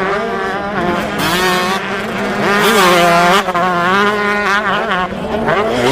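Motocross dirt bike engine running hard, its pitch rising and falling with the throttle.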